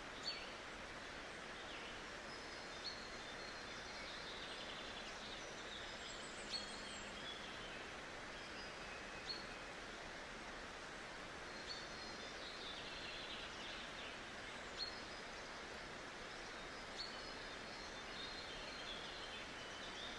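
Small birds chirping and twittering in high, thin calls over a steady background hiss, with a short sharp chirp every two to three seconds.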